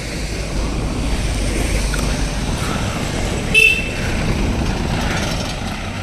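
A motor vehicle's engine rumbling as it passes, swelling and then easing off, with one short horn toot about three and a half seconds in.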